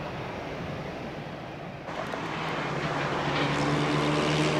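Airliner engines running, a rumble that changes abruptly about two seconds in and then grows louder, with a steady multi-tone engine hum building toward the end.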